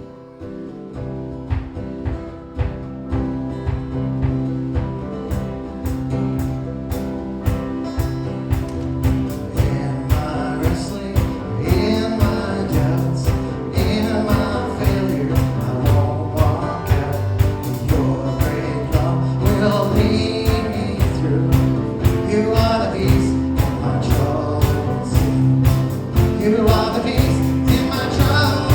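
Worship song with guitar, building up. A steady drum beat comes in about five seconds in, and singing joins from about ten seconds in.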